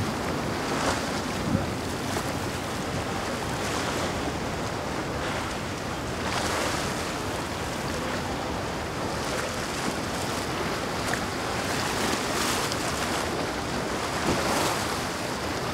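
Rough inlet water: waves and surf washing and breaking, swelling louder every few seconds, with wind buffeting the microphone.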